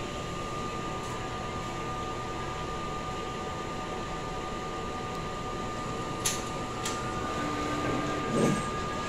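Large-format sublimation printer running a nozzle check print: a steady mechanical hum with a thin steady tone over it, and two sharp clicks about six and seven seconds in.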